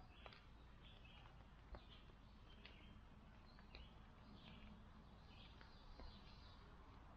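Very quiet outdoor ambience with faint, short bird chirps about once a second and a few soft clicks.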